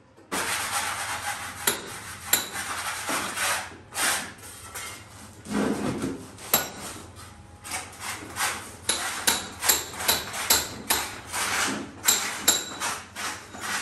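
Masons' hand-tool work on a wall: a rough scraping for the first few seconds, then a long run of irregular sharp knocks and scrapes, several a second.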